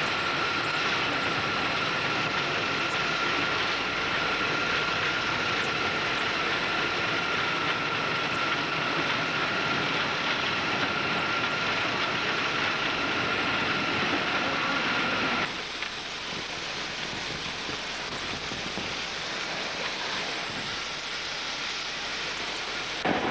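South African Railways class 25 condensing steam locomotive running under way, heard from the cab: a steady rush with a high, even whine from its exhaust-steam turbines and no chuffing exhaust beat. About two thirds of the way through, the whine cuts out abruptly, leaving a quieter, plainer rush of the running train.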